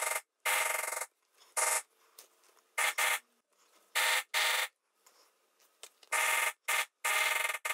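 Lightweight poly maul striking a steel petal lifter held in tooling leather. About nine irregular strikes, some in quick pairs, each a short buzzy ring under half a second long.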